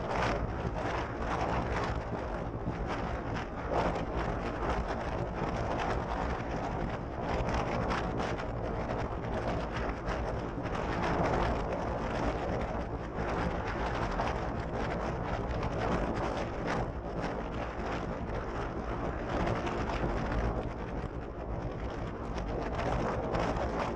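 Polaris RZR 900 side-by-side's twin-cylinder engine running steadily while driving over sand, with wind rushing on the microphone.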